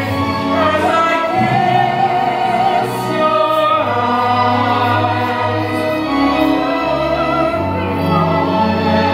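Musical-theatre song: a voice holding long notes with vibrato over instrumental accompaniment whose bass line changes every second or two.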